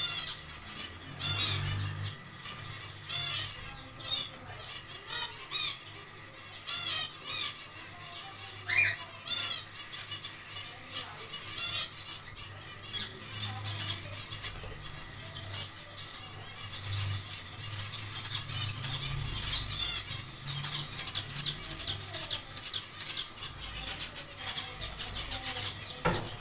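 Zebra finches calling in an aviary colony: many short, nasal, squeaky calls overlapping at an irregular pace. A low rumble comes and goes underneath.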